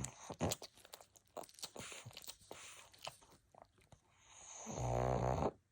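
Sleeping pug snoring: a scatter of small clicks for the first few seconds, then one long snore that swells louder from about four seconds in and stops abruptly near the end.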